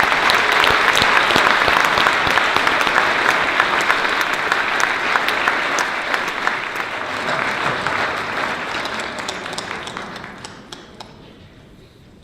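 An audience in a large hall applauding a speaker: loud clapping that starts at once, holds for several seconds and then dies away over the last few seconds.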